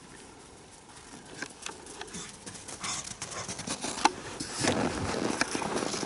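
Dogs running about, their paws pattering and scuffling, growing louder from about a second in.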